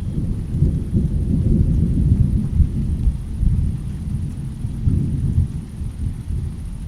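Rolling thunder: a deep, continuous rumble that swells and fades, with peaks near the middle and around five seconds in.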